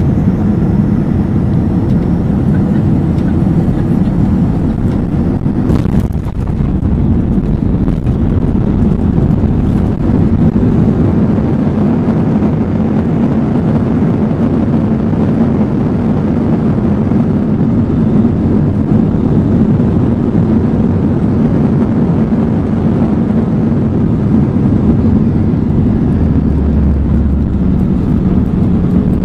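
Cabin noise inside an Airbus A321-211: the steady run of its CFM56 engines and a low rumble from the wheels as the jet rolls along the ground after landing.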